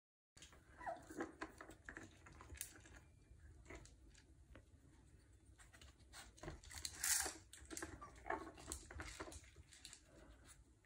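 Bichon puppy nosing and pushing a plastic egg-shaped kibble-dispensing toy across the floor: irregular clicks and knocks of the plastic toy, with kibble rattling inside, starting a moment in and loudest about seven seconds in.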